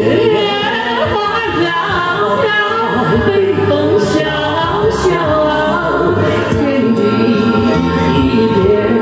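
A man and a woman singing a duet into handheld microphones.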